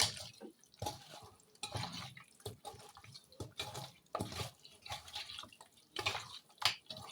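Raw chicken pieces being mixed by hand with a wet spice marinade in a bowl: irregular wet squishing and squelching.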